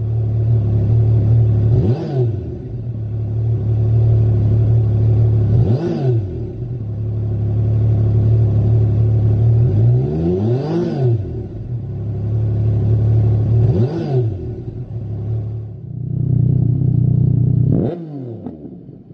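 Yamaha MT-09 Tracer's 847 cc inline-three engine idling through a Lextek SP8C aftermarket silencer, blipped up and straight back down to idle five times, about every four seconds; the blip near the middle revs highest.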